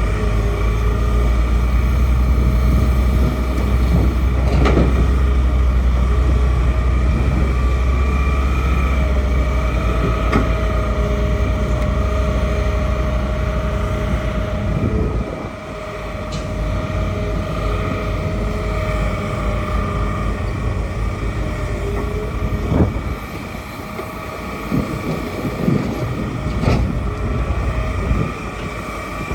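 Hitachi excavator's engine and hydraulics running under work, with a steady whine over a low rumble. The rumble drops off about halfway through, and several sharp knocks or clanks come through.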